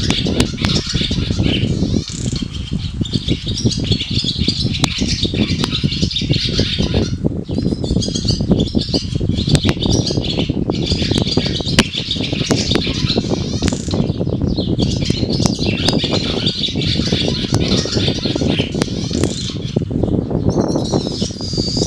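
A flock of barn swallows twittering, many overlapping chirps and warbles with hardly a pause, over a steady low rumble.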